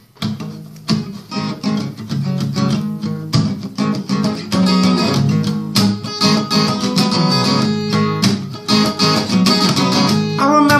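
Acoustic guitar with a capo, strummed chords playing a song's introduction. A man's singing voice comes in near the end.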